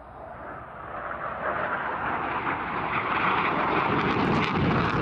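A JF-17 Thunder's single turbofan engine on a low display pass: the jet noise grows steadily louder over the first three seconds as the fighter approaches, then holds at full strength.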